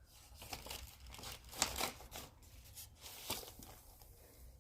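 Vinyl record sleeves and packaging being handled: several short bursts of rustling and crinkling as the records are taken out.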